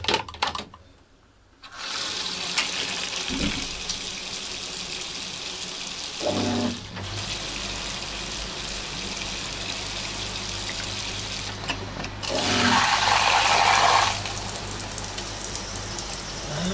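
Tap water running into a bathtub, turned on about two seconds in and flowing steadily, louder for a couple of seconds near the end. A low steady hum joins about six seconds in.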